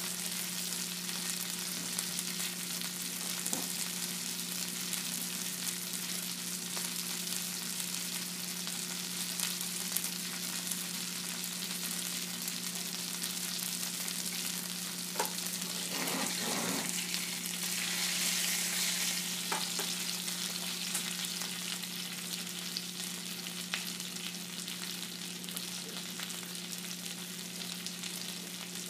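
Food frying in a pan, a steady sizzle over a low hum, with a few light knocks about halfway through and a louder swell of sizzling just after.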